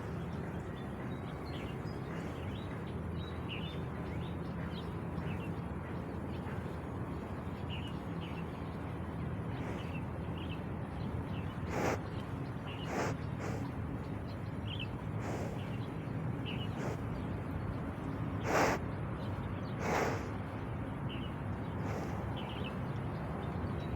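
Water buffalo sniffing: five short breathy sniffs in the second half, the loudest about two-thirds of the way through, over a steady low rumble and small bird chirps.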